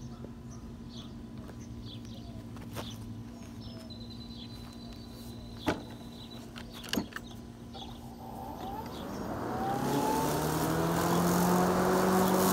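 Greenworks 60V electric lawn mower with a doubled, cross-stacked (X) blade: a low hum and two sharp clicks, then about two-thirds through the blade motor spins up with a rising whine and settles into a loud, steady run.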